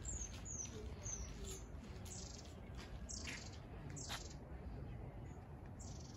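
Small songbirds chirping: a run of short high notes, many sliding down in pitch, with two louder calls sweeping down about three and four seconds in, over a steady low rumble.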